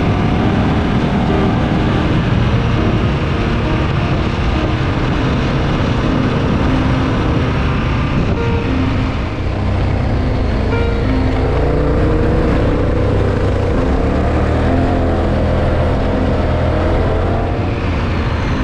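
Adventure motorcycle engine running under way on a gravel road, with wind and tyre noise; its pitch wavers up and down in the second half as the throttle changes.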